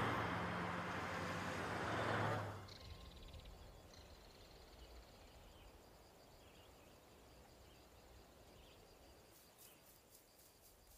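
A car driving past on a highway: engine hum and road noise, loud for about two and a half seconds, then cut off abruptly. Quiet outdoor ambience follows, with faint high chirps.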